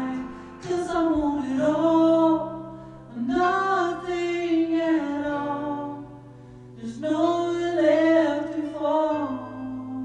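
A man singing a slow melody in long held notes with vibrato, over a sustained accompaniment of steady low notes. There are four sung phrases, with a pause a little past the middle.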